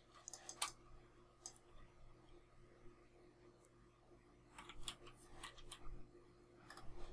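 Faint computer mouse and keyboard clicks: a couple of single clicks, then a quick run of several clicks about two thirds of the way through and a few more near the end.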